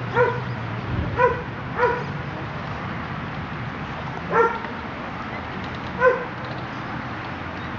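A dog barking: five short single barks at uneven gaps, over a steady low hum.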